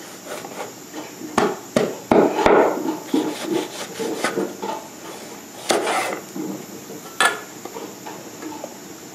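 Heavy broad-bladed knife chopping through green mango onto a wooden cutting board, in sharp knocking chops. Four come in quick succession about a second and a half in, then a few more, further apart, later on.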